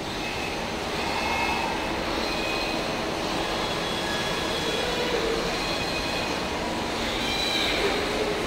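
Industrial robot arm's electric servo drives whining in faint high tones that rise and fall as its joints move, over a steady machine hum.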